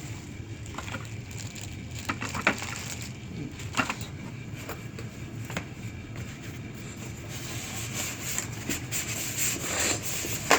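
Packing being handled in an opened box: cardboard and foam scraping and rustling, with a couple of sharp knocks about two and a half and four seconds in, and denser rustling near the end.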